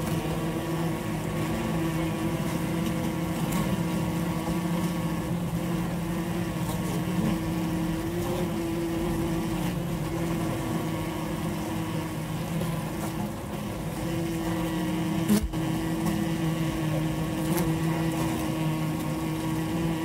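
Honeybee colony humming inside the hive, heard from a microphone among the combs: a steady low drone with a higher overtone above it. A single sharp click about fifteen seconds in.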